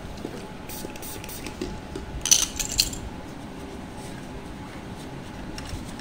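Light clicks and rattles of hard plastic and small metal parts being handled, with a louder cluster of sharp clicks a little over two seconds in. A faint steady hum runs underneath.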